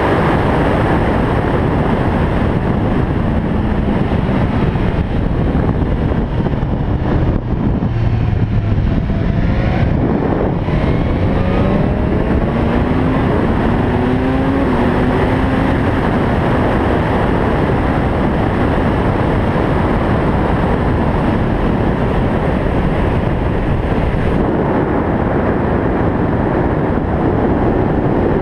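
Motorcycle at speed on a track straight: heavy wind rush over the bike-mounted camera, with the engine's note climbing in several short rises partway through.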